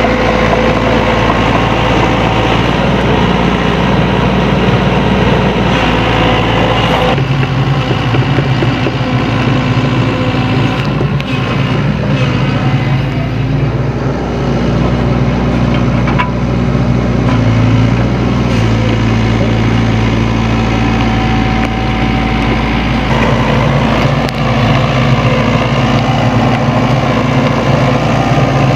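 Sany SY75C mini excavator's diesel engine running steadily while it works, its note shifting with the hydraulic load about a quarter of the way in and again near the end. A few short knocks come through.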